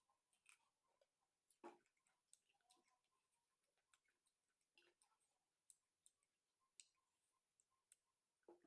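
Faint, irregular wet clicks and smacks of someone chewing food, several a second, a slightly louder one about a second and a half in.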